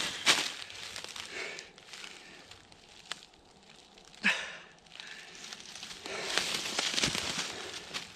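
Dry fallen leaves crunching and rustling as a person moves and kneels in them, with a longer, denser rustle near the end as a carcass is laid down on the leaf litter. A short sharp sound stands out a little over four seconds in.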